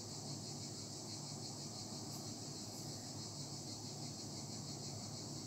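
Steady high-pitched background hiss with a slight flutter, over a faint low hum; no distinct handling sounds stand out.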